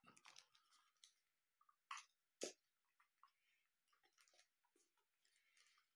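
Near silence: room tone, broken about two seconds in by two faint clicks about half a second apart.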